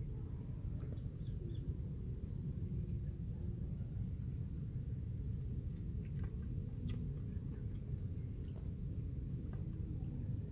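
Outdoor rural ambience: a steady high insect buzz and many short, high, falling bird chirps over a constant low rumble.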